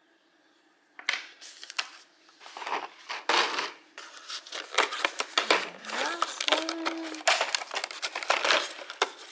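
Cardboard advent calendar doors being pried and torn open by hand, with crinkling and rustling of the card and the treat packaging, starting about a second in.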